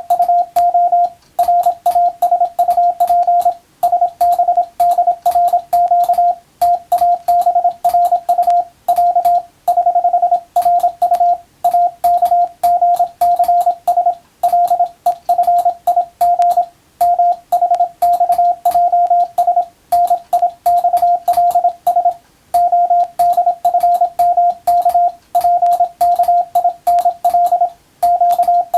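Morse code (CW) sent as one steady mid-pitched tone keyed rapidly on and off in dots and dashes, grouped into letters with short pauses between them. It is English-alphabet telegram practice text for copying by ear, with a faint click at each keying.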